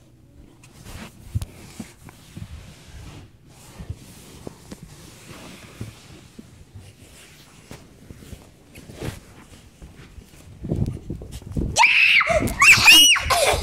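Faint rustling and scattered soft knocks, then near the end a few heavy thumps and loud, high-pitched, wavering shrieks from children.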